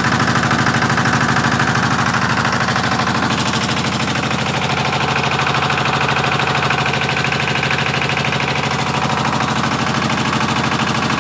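20 HP single-cylinder power-pack engine running steadily, driving a single-phase generator, with a fast, even train of exhaust beats.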